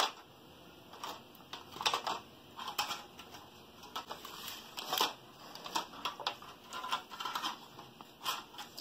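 A pen scratching across a sheet of paper on a tabletop, drawing an arrow in short, irregular strokes.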